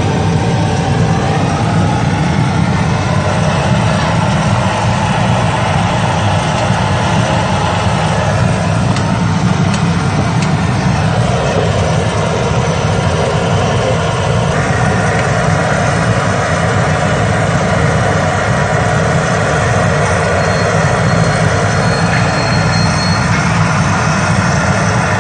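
Potato chips deep-frying in a large wok of hot oil: a steady sizzle and bubbling, under a louder, steady low rumble.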